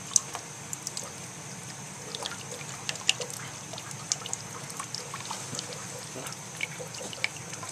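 Water draining out of a boiler through an opened valve and hose, a steady rush of water with irregular drips and splashes. The boiler's water level is being lowered to test the low-water cutoff.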